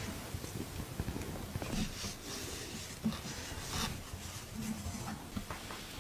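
Makeup products being handled: a run of small taps and clicks with short brushing, scratching strokes.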